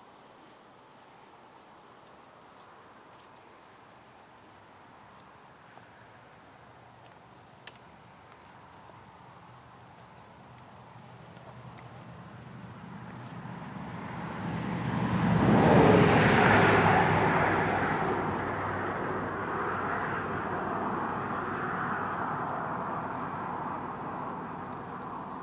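Engine noise of a passing motor vehicle, building over several seconds to a peak about two-thirds of the way in, then fading slowly.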